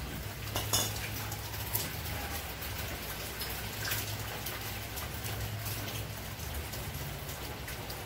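Water pattering and dripping onto a concrete floor from the washing machine's opened drain-filter housing, with a few light plastic clicks from the drain-pump filter being handled. A low steady hum runs underneath.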